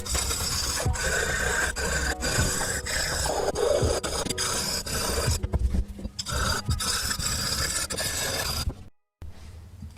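Hand scraping and rubbing on the metal of a model gun, a continuous rasping with small knocks; it cuts off suddenly about nine seconds in.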